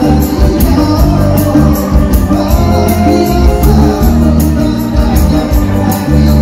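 Live band music over a PA: an upbeat song with a steady drum beat and bass, male vocals, and violins in the band.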